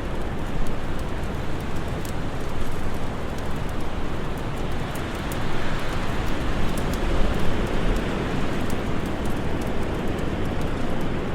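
Steady winter wind rushing, swelling for a few seconds around the middle, with light scattered crackles from a fire over it.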